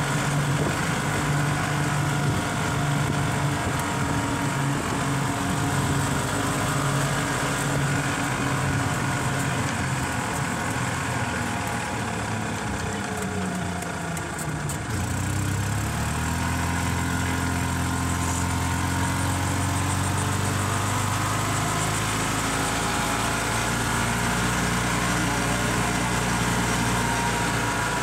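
Golf cart's motor running as it drives along, with road and wind noise. Its hum slides down in pitch about halfway through, then holds a steady lower note.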